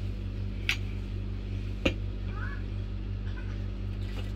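A steel spoon clinks twice against a bowl or board, about a second apart, over a steady low hum.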